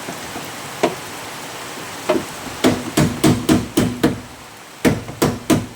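Hammer blows on the steel repair panel in a Triumph TR7's boot floor, knocking down a spot that welding has pulled up. About a dozen sharp metallic knocks with a short ring: a few spaced strikes, then quick runs of three or four blows a second in the second half.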